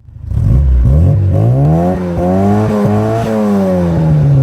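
Car engine revving. The pitch climbs over about two seconds, holds near the middle and then slowly falls back.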